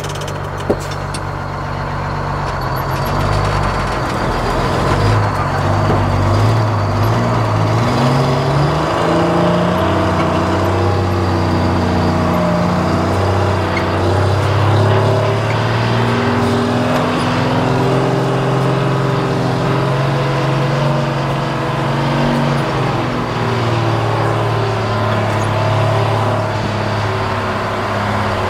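Detroit Diesel two-stroke engine of a White 4000 semi truck running as the truck pulls away, its revs rising and falling over and over. There is a single sharp click about a second in.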